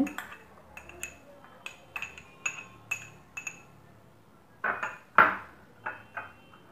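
A metal spoon clinking and tapping against a glass bowl of chopped tomato and onion, a string of light clinks with a ringing tail, then a louder brief scrape about five seconds in.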